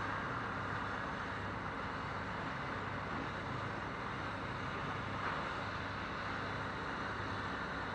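Truck-mounted mobile crane's engine running steadily with a low hum.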